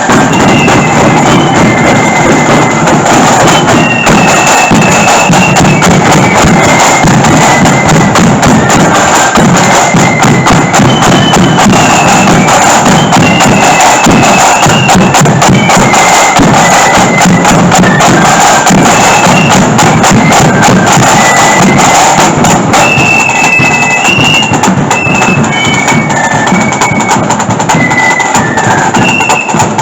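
Marching flute band playing: a high flute melody over drums, with a bass drum keeping the beat.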